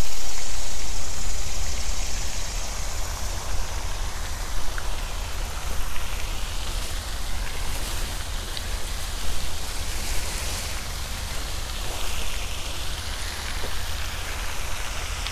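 Wind rushing over the microphone: a steady hiss with a flickering low rumble. Leafy shrubs rustle against it as hands push through them.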